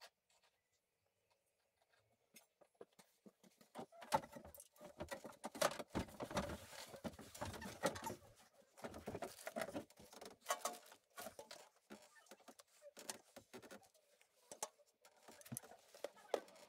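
Irregular clinks, taps and rattles of hand tools and metal parts being handled during tractor repair work, starting about four seconds in after a near-quiet opening.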